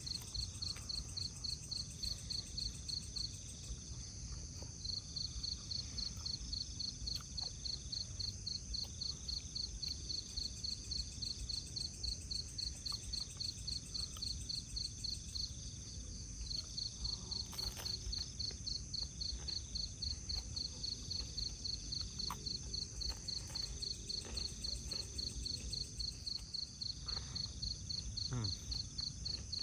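Night insects, crickets, chirping in an even, rapid pulse over a steady high whine, breaking off briefly a few seconds in and again just past halfway. Faint chewing and small clicks come from close by.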